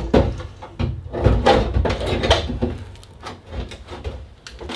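Irregular clunks, knocks and scraping of sheet metal being shifted against metal: a replacement heater channel on a 1974 VW Super Beetle being worked into place for a test fit, where the floor pan catches at the front.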